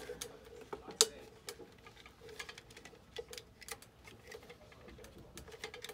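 Irregular light clicks and knocks of wiring and an electric bike controller being worked out of the metal frame's down tube by hand, with one sharper knock about a second in.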